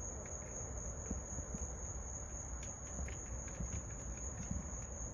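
Faint, scattered clicks and light taps of small parts being handled at a tachometer's wiring connector, over a steady high-pitched whine and a low rumble.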